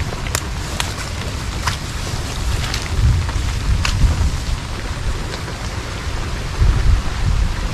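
Steady rain with a few sharp drops ticking close by, and wind gusting against the microphone, swelling into a low rumble about three seconds in and again near the end.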